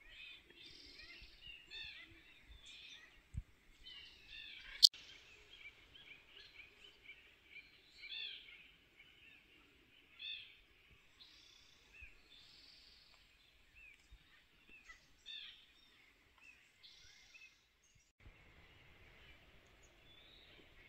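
Faint forest birdsong: several birds chirping, with short repeated high calls overlapping. There is one sharp click about five seconds in. Near the end the chirping gives way to a faint steady hiss.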